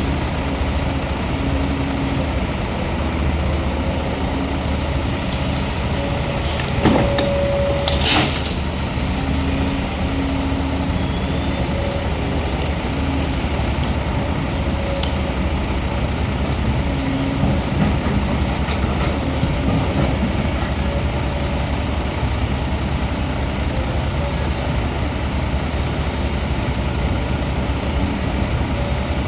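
Heavy diesel machine running steadily, engine drone with hydraulic whine, with a brief click and then a short sharp hiss about eight seconds in.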